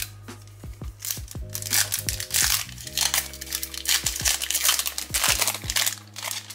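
Foil wrapper of a Skybox Metal Universe hockey card pack being torn open and crinkling as the cards are pulled out. The crinkling starts about a second and a half in and is dense and loud until near the end. Background music plays underneath.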